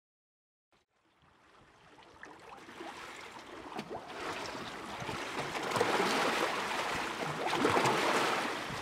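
Lagoon waves lapping and washing in, fading up from silence over the first few seconds and swelling in surges.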